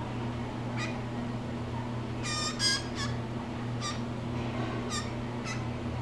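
Blue jay giving a series of short calls, about seven in all, the loudest two close together a little before the middle. A steady low hum runs underneath.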